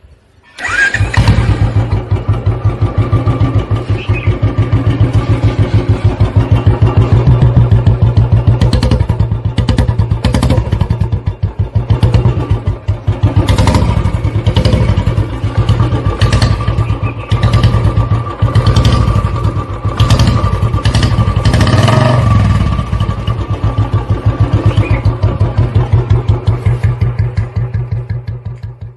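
A Royal Enfield Bullet's single-cylinder four-stroke engine starts about half a second in, then idles with a fast, even beat. It gets several blips of the throttle through the middle and dies away near the end.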